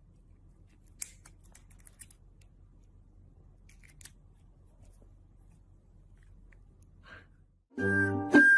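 Small scissors snipping: a quick run of faint snips about a second in, then single snips near the middle and later, over a low hum. Louder music starts near the end.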